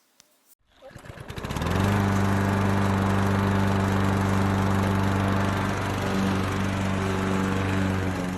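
Hyundai IC52-2R brush cutter's two-stroke petrol engine running at a steady speed. It swells up about a second in and fades away near the end.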